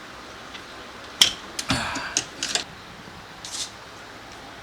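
A sharp click about a second in, then a quick run of clicks and scraping, and a short scrape later on. These are small plastic and metal parts inside a car door being pried and worked loose with a small screwdriver.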